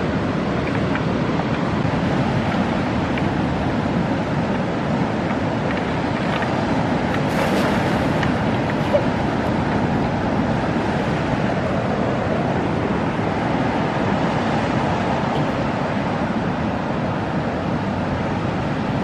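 Steady wind and water-wave noise, with wind buffeting the microphone, and a brief splash about seven seconds in.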